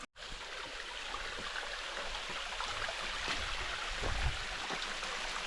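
Steady rushing of a creek's flowing water, with a few faint clicks and a brief low thump about four seconds in.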